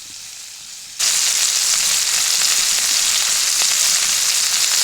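Chicken pieces frying in butter in a cast iron pan, a steady loud sizzle that comes in suddenly about a second in.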